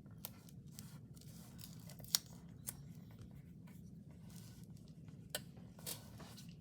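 Scotch tape being pulled off, cut and handled with paper: a scattering of sharp clicks and short rustles, the loudest click about two seconds in.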